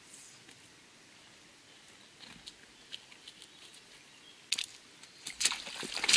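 Wading boots splashing through shallow river water and knocking on stepping stones, a few steps in a row. A faint river hiss runs underneath, and the splashes grow louder and closer together over the last couple of seconds.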